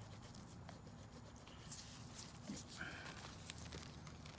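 Faint scattered clicks and light rustles of small parts being handled by hand, with a brief faint squeak about three seconds in.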